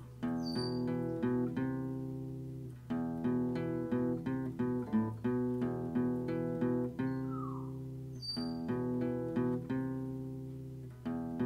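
Background music: an acoustic guitar playing plucked chords, with a short sliding note that comes back about eight seconds later.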